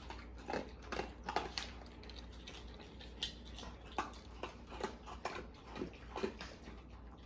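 Dogs eating dry kibble from bowls on the floor: irregular crunching and clicking of the kibble, with no clear rhythm.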